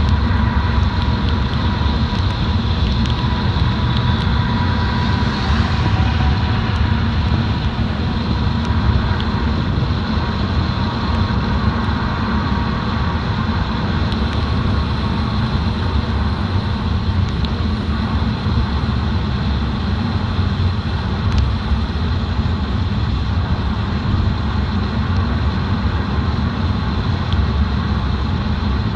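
A car driving, heard as white noise: a steady low rumble with an even hiss above it, without change.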